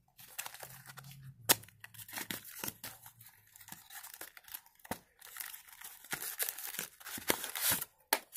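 Paper-and-foil sticker packets and their box packaging crinkling and tearing as they are handled and opened, in a string of irregular crackles with a sharp click about a second and a half in.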